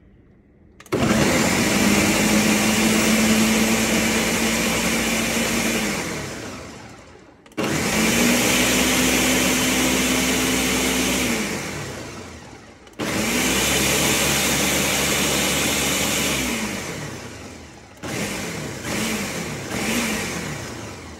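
Ninja Professional Blender's motor blending banana, kale and pineapple into a thick smoothie, in three long runs that each spin up quickly, hold steady for about four to five seconds and wind down. Near the end it runs in several short bursts.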